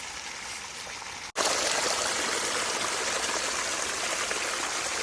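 Spring water gushing out of a mountainside and running off in a steady rush. About a second in there is a sudden break, after which the rushing water is louder and nearer.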